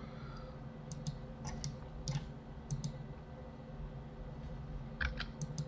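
Scattered clicks of a computer keyboard and mouse, often in quick pairs, with a small cluster near the end, over a steady low hum.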